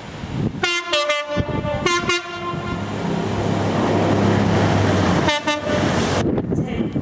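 Train's two-tone horn sounded in short blasts about a second in and again at two seconds, then the train running past with a growing rumble, and one more short horn blast late on.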